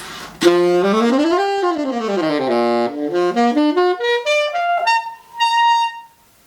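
Saxophone played on a Rigotti 3.5 Light cane reed, starting about half a second in: a quick run up and back down, then a stepwise climb to a held high note that cuts off shortly before the end.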